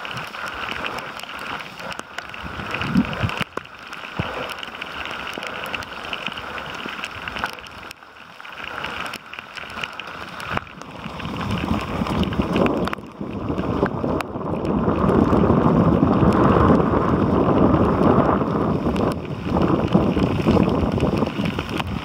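Wind buffeting the microphone along with rain and splashing water, with no engine heard. It grows much louder about halfway through.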